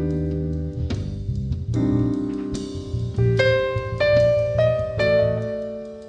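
Background piano music: chords struck about once a second over a steady bass line, fading near the end.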